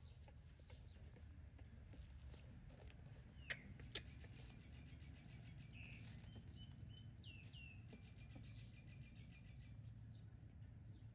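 Near silence with faint bird chirps and a quick high trill in the background, and two sharp clicks about half a second apart roughly three and a half seconds in.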